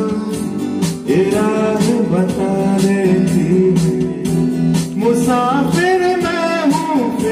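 Live band playing a Hindi film song: a man sings the melody over keyboard, acoustic guitar and bass guitar, with a steady beat.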